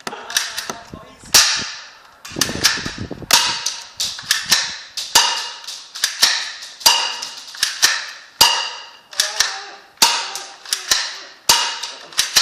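BB gun fired over and over, about one sharp shot a second, each crack followed by a brief ringing decay.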